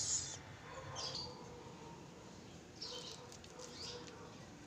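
Quiet room with faint bird chirps in the background, a few short high calls about a second in and again around three seconds in.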